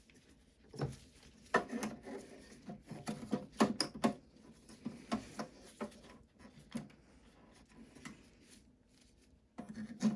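Parts of an ECOPRO disc repair machine clicking, knocking and rubbing as a piece is fitted back onto it by hand, in irregular handling noises with a busy stretch from about one to five seconds in and more near the end.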